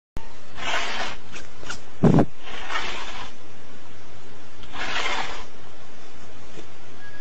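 Cat hissing three times in breathy bursts, about two seconds apart, with one dull thump just after the second second.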